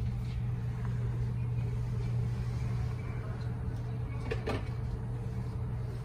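Room tone: a steady low hum, with a couple of faint clicks about four and a half seconds in.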